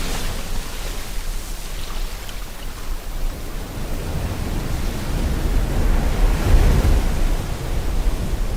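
Ocean waves washing on the shore with rain hissing over them, a steady rush with a deep rumble; a wave swells louder about six to seven seconds in.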